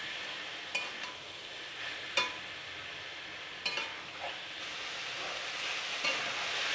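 Soya chunks and potatoes sizzling in oil and masala in a kadai on high flame, stirred with a metal spatula that scrapes and clicks against the pan a few times.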